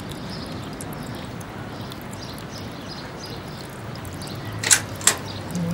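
Steady soft hiss of outdoor garden ambience with faint high chirps, then two sharp clicks about a second apart near the end. Music starts right at the close.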